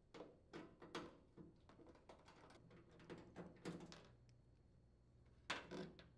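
Faint, irregular clicks and taps of a hand screwdriver turning out screws from the plastic drain-filter housing of a Samsung front-load washer, with a short cluster of louder clicks near the end.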